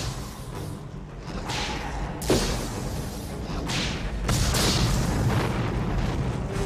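Explosions in an action-film soundtrack: several deep booms and blasts over a steady low rumble, with one sharp hit a little over two seconds in.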